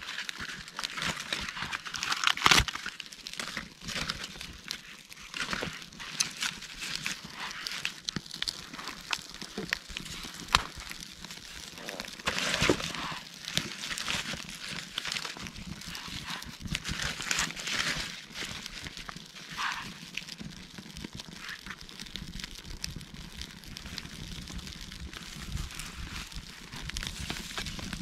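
Wood campfire crackling and popping steadily, with a few sharper, louder pops now and then.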